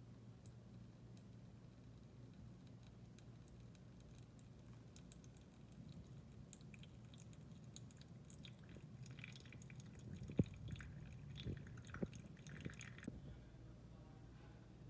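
Hot water poured in a thin stream onto ground coffee in a ceramic pour-over dripper: faint crackling over a low steady hum, with a few sharp clicks between about ten and thirteen seconds in.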